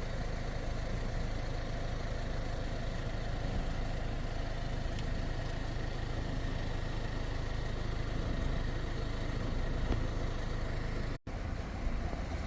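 Steady engine and road noise of a vehicle, low and even, broken by a short cut about 11 seconds in.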